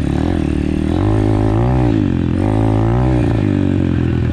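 Apollo RFZ pit bike's single-cylinder four-stroke engine under way, revving up and easing off twice as the rider works the throttle.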